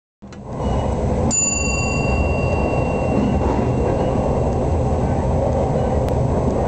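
Electric passenger train running along the track, a steady low rumble heard from inside the front of the train. About a second in, a single bell-like ding rings out and dies away over about two seconds.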